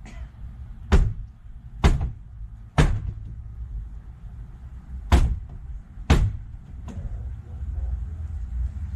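Sledgehammer blows on the wooden walls of an old chicken coop, knocking off lap siding. There are six sharp strikes about a second apart: three, a pause of about two seconds, then three more.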